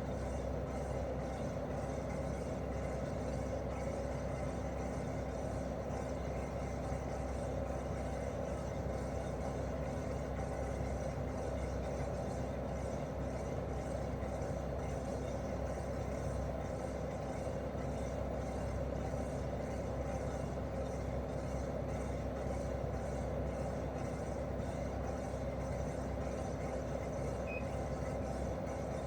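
Daikin R28RMV mini-split outdoor unit running in heating mode, its twin-cylinder swing compressor and fan giving a steady, even hum with a rushing noise over it.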